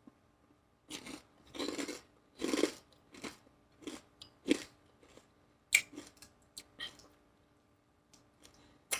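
Close-up chewing and crunching of lettuce-wrap tacos, a run of wet, crunchy bites from about a second in that thin out and stop after about seven seconds.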